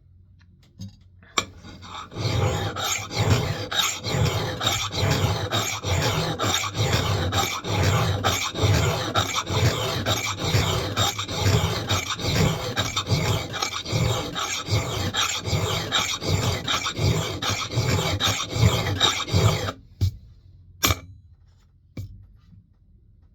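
A hand file rasping in repeated strokes across an axe head's steel edge, grinding in the bevel until a burr forms. The filing starts about two seconds in and stops near the end, followed by a short sharp clink.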